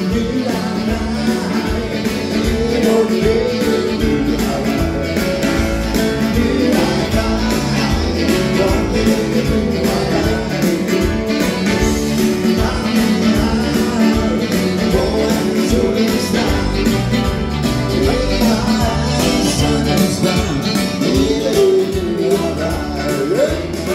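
A live dance band playing a song with a steady beat, a male vocalist singing into a handheld microphone over guitar, keyboard, bass and drums.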